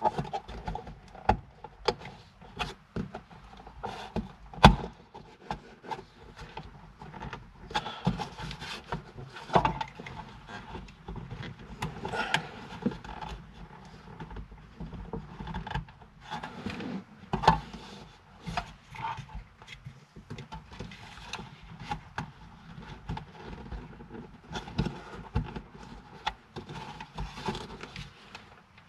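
Hands handling and clipping plastic interior trim around a rearview mirror: a long run of irregular plastic clicks, taps and rubbing, with sharper snaps about five seconds in and again about seventeen seconds in.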